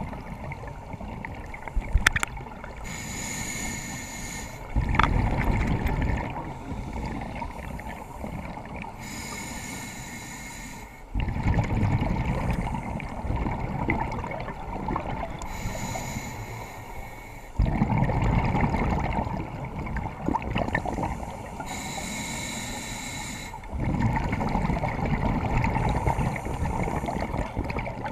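Scuba diver breathing through a regulator underwater: a hissing inhale, about every six seconds, is followed each time by a longer spell of rumbling exhaust bubbles. A couple of sharp clicks sound near the start.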